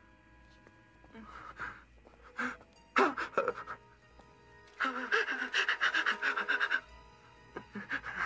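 A frightened cartoon fox character panting and gasping in quick, breathy bursts, the longest run lasting about two seconds, over quiet background music.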